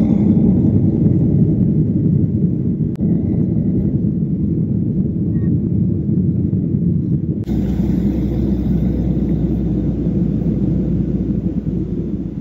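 Airliner's jet engines at take-off thrust, heard from inside the cabin: a loud, steady low rumble. It changes abruptly twice, about three seconds in and again about seven and a half seconds in, where a deeper rumble joins.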